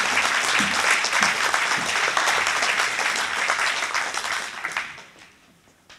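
Audience applauding: dense clapping that dies away about five seconds in.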